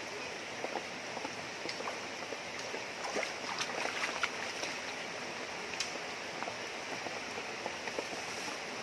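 Shallow river flowing and rippling over rocks: a steady rush of water. Small splashes and clicks from hands working in the shallow water, most of them between about three and four and a half seconds in.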